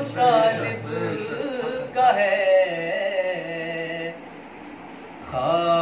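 A man singing a manqabat, a Sufi devotional poem, in long, drawn-out wavering notes. The singing drops away about four seconds in and picks up again near the end.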